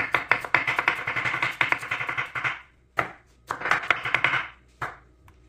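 Large kitchen knife slicing a red onion on a wooden cutting board: a fast run of crisp knife taps for about two and a half seconds, a single cut, then a second, shorter run of taps.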